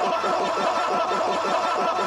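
Dense, continuous eerie ambience: a fast fluttering, chattering pulse, several strokes a second, with a wavering high tone held over it at an even level.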